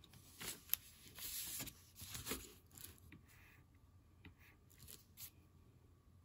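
Faint scratching and rustling in a few short bursts, with a sharp click about three quarters of a second in and a few smaller ticks after.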